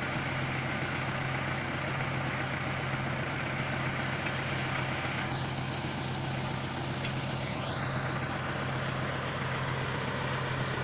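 Diesel engine of a truck-mounted borehole drilling rig running steadily at constant speed while the newly drilled well is flushed.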